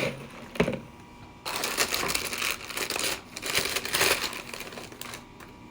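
Gift shred being handled in a gift basket: two short sharp rustles in the first second, then a few seconds of dense crinkling and rustling that fades out near the end.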